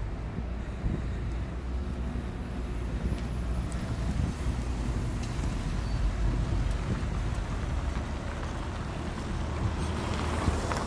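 Steady low outdoor rumble of traffic noise and wind on the phone's microphone.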